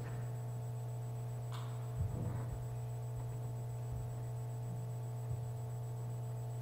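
Steady low electrical mains hum from the sound system, with a few faint knocks.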